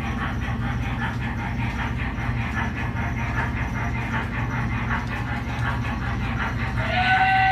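O-scale MTH Proto-Sound 2 model steam locomotive running with its digital sound: steady rhythmic steam chuffing from the onboard speaker over a low hum of the locomotive rolling on three-rail track. Near the end its steam whistle starts to blow, a steady chord of several notes.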